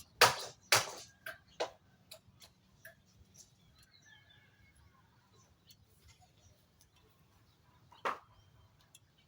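Hammer blows on wood, two hard strikes about half a second apart at the start, then lighter taps that die away, and one more hard blow near the end.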